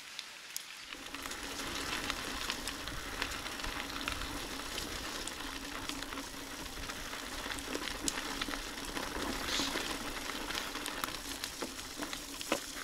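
Mountain bike rolling along a forest road: a steady crackling hiss of the tyres on the surface, scattered with small clicks, growing louder about a second in as speed picks up.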